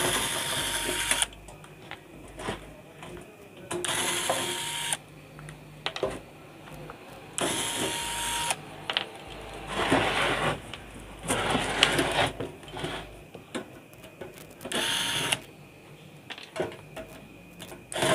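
A small electric screwdriver running in about six short runs, each about a second long with a steady tone, backing the screws out of an amplifier's sheet-steel cabinet cover. Clicks and knocks of the metal cover come between the runs.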